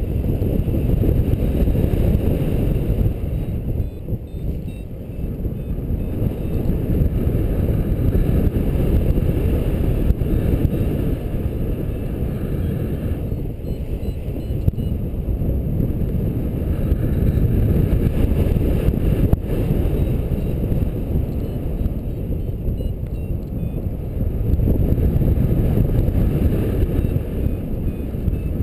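Wind rushing over the microphone of a paraglider in flight, a loud, low rumble that swells and eases every few seconds.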